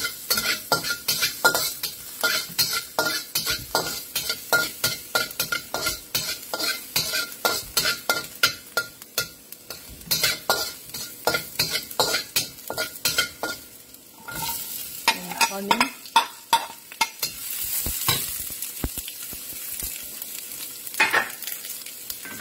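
Metal spatula scraping and tapping against a wok, a few strokes a second, while minced garlic fries in oil with a light sizzle. Later the strokes mostly stop and a steadier, louder sizzle takes over as sliced onions fry in the wok.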